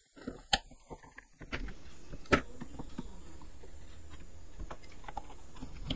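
Small wooden chair parts being handled and set down on a workbench: two sharp wooden knocks, about half a second and about two seconds in, with a few lighter ticks over a faint low hum.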